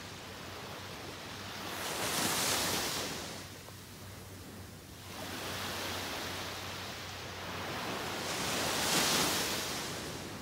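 Small waves breaking and washing up a sandy beach. Two surges of foamy hiss come, one a couple of seconds in and one near the end, with softer wash between them.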